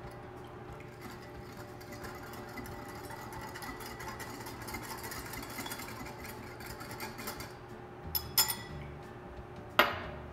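Wire balloon whisk beating oil-and-vinegar dressing in a ceramic bowl, a quick steady scraping and ticking of the wires against the bowl, stopping about seven seconds in. Then a few sharp clinks, the loudest near the end with a short ring, as the whisk is knocked and set down.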